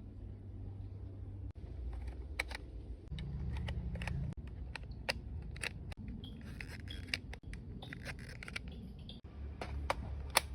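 Toy gun packaging being opened and a plastic toy rifle handled: scattered sharp clicks and snaps, with some scraping and rustling.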